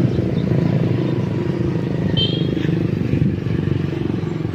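Motorcycle engine running steadily, with a brief high-pitched chirp about two seconds in.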